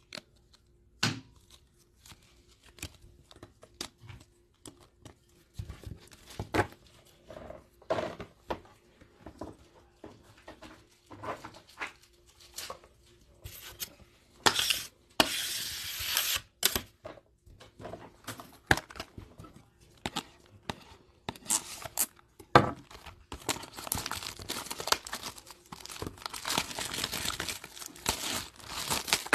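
Foil trading-card pack wrappers crinkling and tearing open, with cards and a plastic toploader handled in short rustles and clicks. There is a longer tear about halfway through and steady crinkling in the last few seconds.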